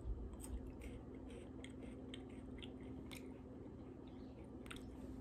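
Faint crunching of a chocolate-covered KitKat wafer being chewed, in scattered small crackles.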